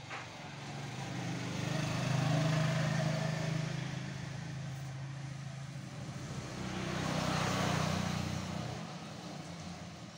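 Motor vehicles passing by twice: engine and road noise swells to a peak about two to three seconds in, fades, then swells again about seven to eight seconds in before fading away.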